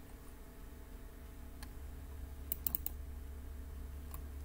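Computer mouse clicks: a single click about a second and a half in, a quick run of four clicks around the middle, and one more near the end, over a faint steady low hum.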